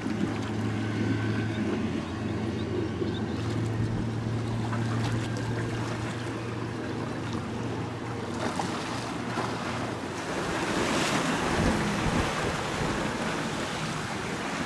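A passing boat's engine drones steadily with a low hum, then fades out about two-thirds of the way through. A rush of water and wind on the microphone grows louder over the last few seconds.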